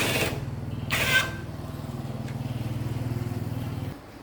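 An engine running steadily, with two short loud rushes of noise near the start, then switched off and stopping abruptly near the end.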